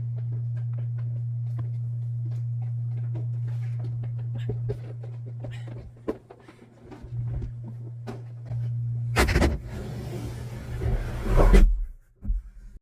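A machine hum holding steady at one low pitch, which drops in level for a moment around the middle. It gives way to a loud rushing, clattering noise for about three seconds near the end, which cuts off abruptly.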